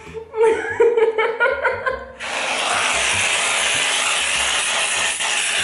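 Aerosol can of whipped cream spraying onto a paper plate: a steady, loud hiss that starts about two seconds in and keeps going.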